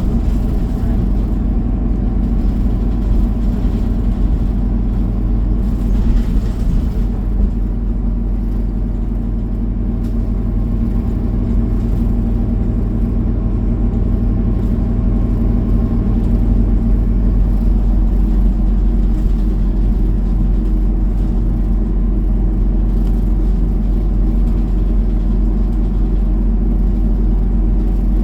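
Transit bus running along the road, heard from inside the cabin: a steady low engine and road rumble with a faint whine.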